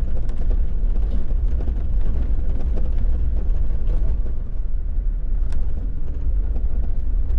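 Jeep driving through town, heard from inside: a steady low rumble of engine and road noise, with scattered faint clicks.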